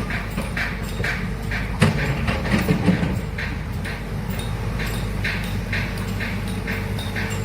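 Heavy construction machine running: a steady low engine drone with a regular clacking about two to three times a second, and a sharp knock about two seconds in.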